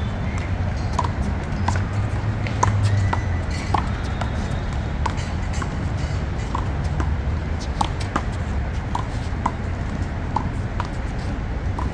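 A rubber handball being struck by hand and smacking off the wall and the concrete court during a rally: a string of short sharp pops, irregularly spaced, about one every half second to second, over a steady low rumble.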